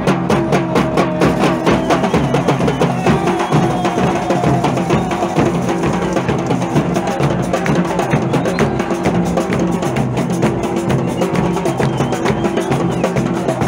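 Supporters' drum band playing hand drums and a bass drum in a fast, steady rhythm, with held notes sounding over the beat.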